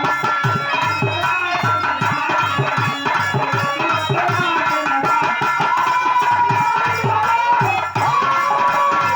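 Instrumental interlude of Bhojpuri birha folk music: a dholak drum plays a steady quick rhythm under a sustained harmonium melody.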